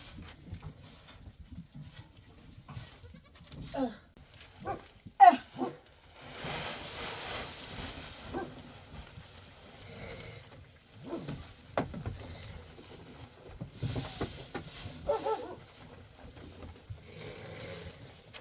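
Goats bleating: a cluster of short bleats about four to six seconds in, the loudest among them, and another bleat about fifteen seconds in.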